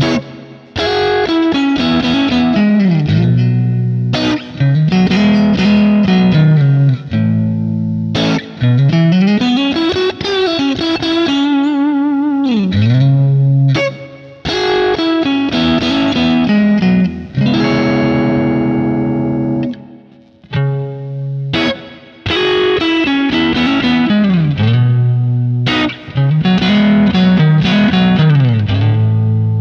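Fender Custom Shop 1957 Heavy Relic Stratocaster with hand-wound 1950s pickups played: single-note runs that climb and fall, alternating with held chords, with short breaks between phrases.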